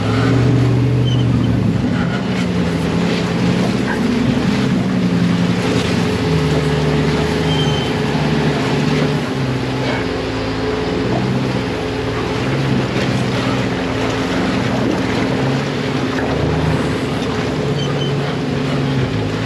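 Off-road buggy's engine running as it drives a muddy dirt track, its pitch stepping up and down with the throttle every second or two, over a steady noise of wind and tyres on the dirt.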